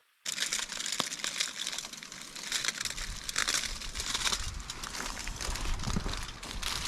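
Campfire crackling and popping densely under a smoking fish, with a low rumble coming in about three seconds in.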